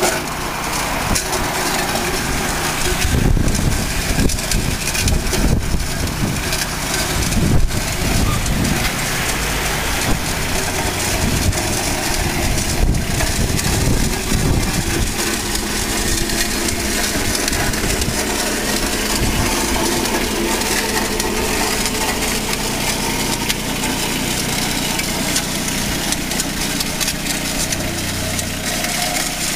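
John Deere ProGator utility vehicle's engine running while a kerb edger attachment works along the kerb. For about the first half there is a rough, uneven grinding noise, then a steady engine hum to the end.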